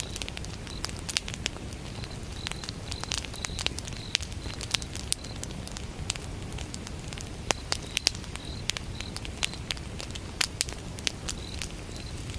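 Firewood burning in a campfire, with frequent sharp crackles and pops over a low, steady rumble. A cricket chirps in short repeated pulses through the first few seconds and again near the end.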